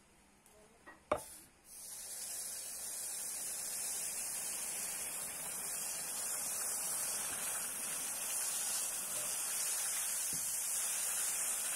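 Red-hot forged iron rod quenched in a stone water trough, sizzling with a steady hiss as the water flashes to steam. A single sharp knock comes about a second in, just before the hiss starts.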